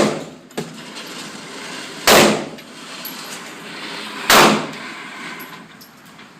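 Two shots from a Ruger LC9 9mm pistol, about two seconds apart, each with a short echoing tail; the tail of a third shot is heard right at the start.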